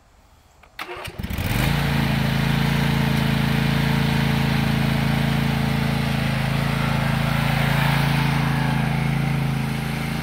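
Riding lawn mower engine starting about a second in after a couple of clicks, then running steadily at a constant speed.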